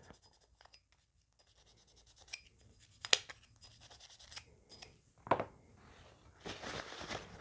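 Brush scrubbing caked-on powder fouling off a Smith & Wesson 627 revolver's cylinder: irregular, faint scratchy strokes with a few sharper clicks, busier near the end.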